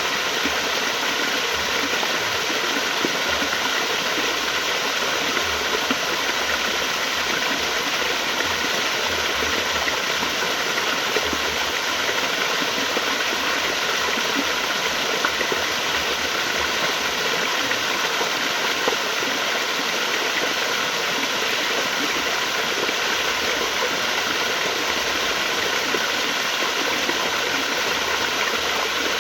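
Flowing water running steadily, an even, unbroken rush.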